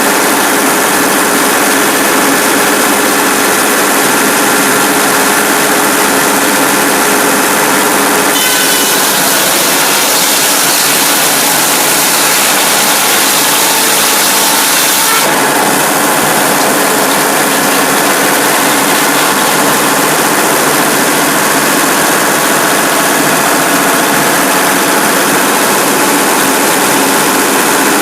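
Cummins diesel powering a Frick 00 circular sawmill, running at a steady speed. For about seven seconds in the middle a harsher hiss rises over it, starting and ending abruptly.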